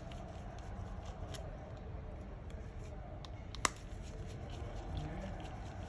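Faint scattered ticks and one sharp click about halfway through, from small tools and parts being handled while the charging port board is taken out of an opened smartphone, over a steady low hum.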